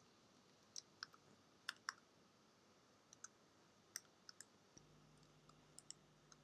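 Faint keystrokes on a computer keyboard: a dozen or so short, irregularly spaced clicks against near silence.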